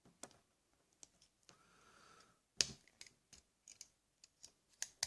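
Faint, irregular small clicks and snicks of a multitool being handled, its parts and scissors moving and locking; the loudest click comes about two and a half seconds in.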